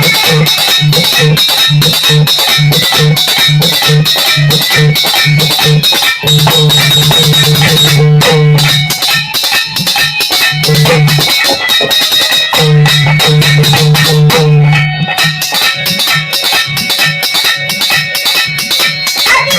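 Instrumental interlude of a bhajan: a fast, steady percussion beat under a plucked-string melody and a repeating bass note, with no singing.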